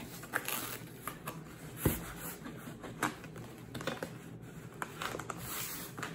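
A cardboard shipping box being torn open by hand: the taped flap pulled and ripped, with cardboard rustling and scattered sharp clicks and taps, the sharpest about two seconds in.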